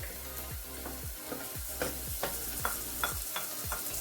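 Onions frying in oil in a pan, sizzling steadily, while a spoon stirs and scrapes through them in quick repeated strokes, about three a second.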